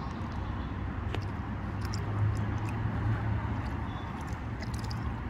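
Water lapping and splashing on a rocky shore as a hand works in the shallows, over a steady low rumble, with a few faint clicks.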